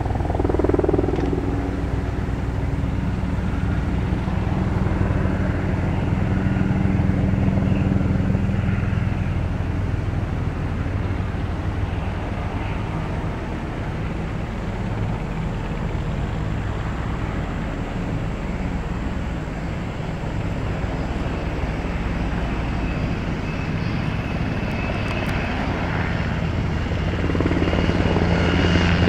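Sikorsky HH-60 Black Hawk helicopter flying, with the steady beat of its main rotor and the sound of its twin turbine engines. It grows louder near the end as it comes close and low, when a high turbine whine comes in.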